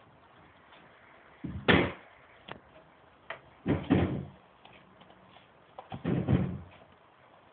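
Three heavy thumps, each dull and about half a second long, roughly two seconds apart.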